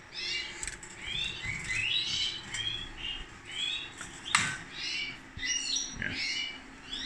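Caged songbirds chirping and singing in a quick, continuous run of short notes that rise and fall in pitch, with one sharp click about four seconds in.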